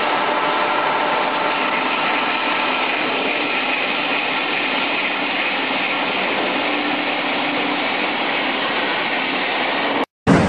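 Jusan industrial unwinding line running: a steady mechanical whirr with faint steady hum tones, cutting off abruptly near the end.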